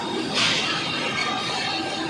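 Metal lathe cutting a steel workpiece: the tool scraping with a steady hiss and faint squealing tones, and a sharper rasp about half a second in.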